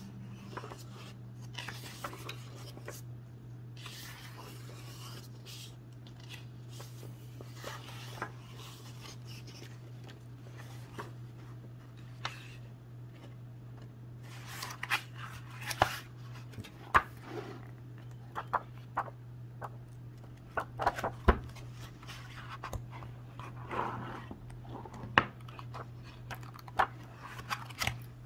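Pages of a hardcover graphic novel being turned and handled: paper rustling and swishing, with a run of sharp flicks and taps in the second half, over a steady low hum.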